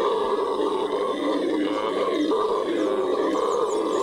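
Venezuelan red howler monkeys (Alouatta seniculus) howling in a steady, unbroken chorus of deep, throaty sound, produced through the enlarged hyoid bone in the throat that acts as a soundbox.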